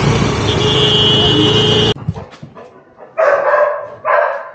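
Rushing wind and engine noise from a moving motor scooter, with a high steady tone for about a second, cutting off abruptly about two seconds in. Then a dog barks twice, about a second apart.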